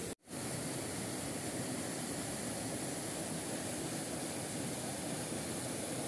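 Small waterfall pouring into a rock pool: a steady rushing of water. It drops out for an instant just after the start, then runs on unchanged.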